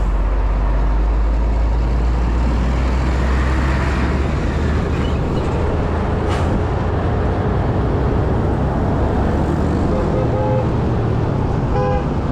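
Riding a motorcycle through city traffic: a steady low rumble of engine, wind and surrounding vehicles, with a vehicle horn tooting briefly twice near the end.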